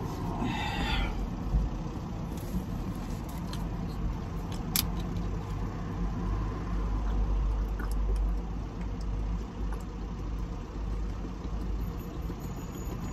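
Road traffic rumbling past on a busy multi-lane road, heard through an open vehicle window, swelling a little in the middle. A few small clicks come from a plastic water bottle being handled.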